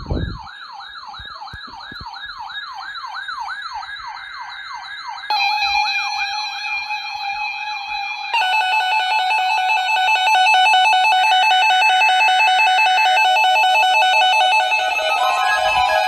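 Several NOAA weather radio receivers sounding their alert alarms for a Required Weekly Test. One radio's rapid warbling siren starts it, a second radio joins about five seconds in with a steady tone and pulsing beeps, and more radios' beeping alarms join about eight seconds in, all overlapping and louder with each one that joins.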